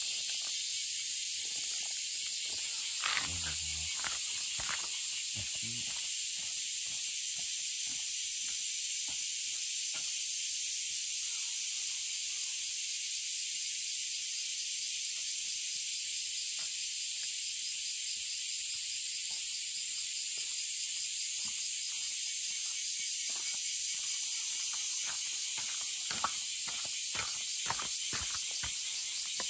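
Steady high-pitched chorus of summer insects, with a cat eating close by: many small clicks of chewing and crunching kibble and wet food off a plate. There is a soft low knock about three seconds in.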